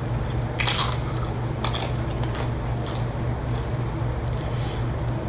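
Tortilla chips crunching as they are bitten and chewed: a few sharp crunches about a second in, then lighter ones, over a steady low hum.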